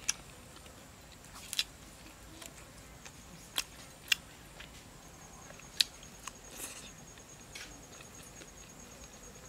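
Eating sounds of roast chicken picked apart by hand: short, sharp clicks and smacks at irregular intervals, about seven in all.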